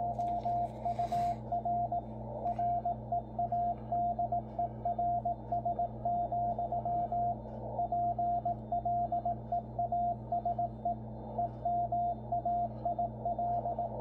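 W1AW's computer-sent Morse code bulletin coming through a Yaesu FTdx10 transceiver in CW mode: a single steady beep keyed on and off in clean, regular dots and dashes. It sits over band hiss narrowed by the radio's 500 Hz filter, with a faint low hum under it. The signal is strong and well centred.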